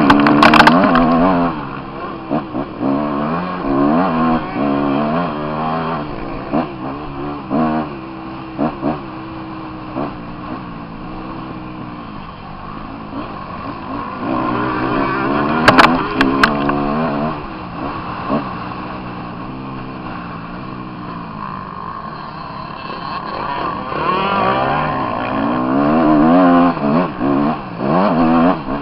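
Motocross bike engine heard through a helmet camera, revving up and down repeatedly as the bike is ridden hard over the track. Sharp knocks stand out about half a second in and twice more around the middle.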